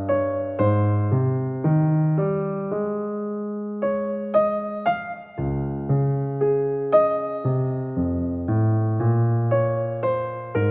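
Background keyboard music: piano-like chords and melody notes struck about twice a second, each fading before the next.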